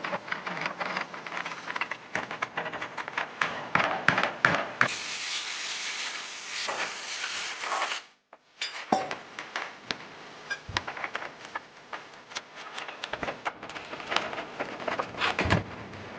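A run of irregular clicks, knocks and rubbing from parts being handled by hand. A brief near-silent break about eight seconds in.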